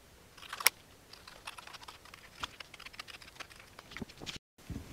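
Scissors snipping through thin cardboard: a run of short, irregular clicks and crunches, with a sharper snip about two-thirds of a second in. The sound drops out completely for a moment near the end.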